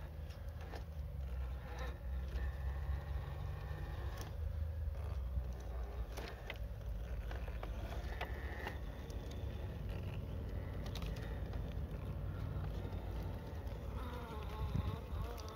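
Electric drive motor and gearbox of an Axial SCX10 III Gladiator RC rock crawler whining as it crawls over rocks, the pitch wavering up and down with the throttle, with a few light clicks of tyres and chassis on stone.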